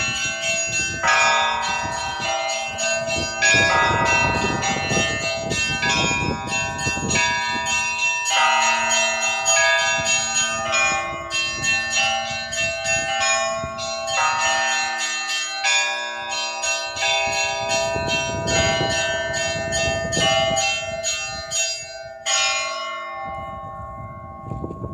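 Russian Orthodox church bells ringing a peal: several bells struck in quick succession over the longer ringing of larger bells. The peal stops about 22 seconds in with a last stroke that rings away.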